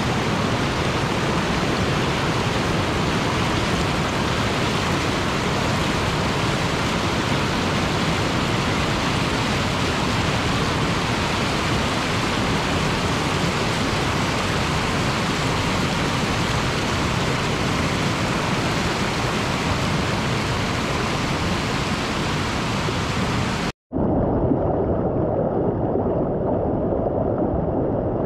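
Mountain river rapids rushing steadily. After a momentary break near the end, the rush continues duller and deeper.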